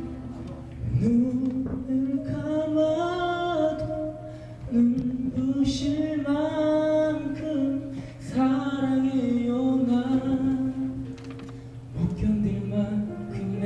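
Small vocal group singing a wordless intro in held harmonies, a melody line bending over the chords in phrases of about four seconds.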